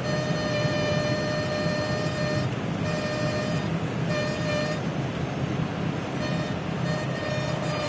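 2011 Ford F-350 pickup driving into a headwind, with a steady wind-induced whistling tone that drops out for a moment a few times, over the low rumble of road and engine noise.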